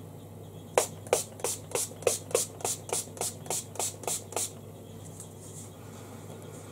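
Makeup fixing spray pumped from its bottle onto the face: about fifteen quick spritzes at roughly four a second, which then stop.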